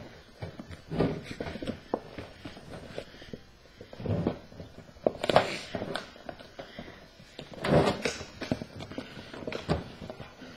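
A flexible fuel cell bladder being folded and forced down into a welded metal fuel cell can by hand: irregular rustling and scraping of the bladder with dull thumps against the can, in uneven bursts a second or more apart.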